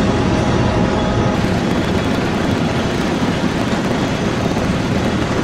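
Heavy farm vehicle engine running steadily, with loud continuous rumble and machinery noise; the sound shifts slightly about a second and a half in.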